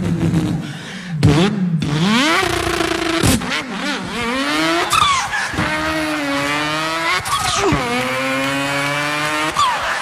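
A man's vocal impression of a car engine, made into a microphone. The pitch revs up in rising glides and drops back every second or two, like a car accelerating up through the gears.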